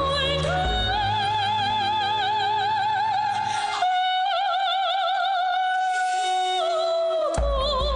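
Music: a melody of long held notes with wide vibrato over an accompaniment, in an opera-like singing style. The low accompaniment drops away about four seconds in, leaving the held notes almost alone, and comes back near the end.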